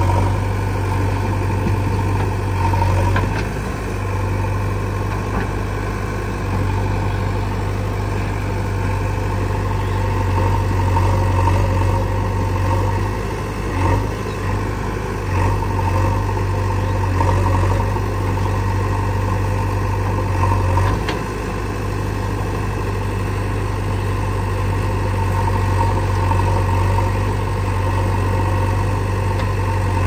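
Diesel engines of a backhoe loader and a tractor idling steadily, with a few brief changes in engine note about halfway through.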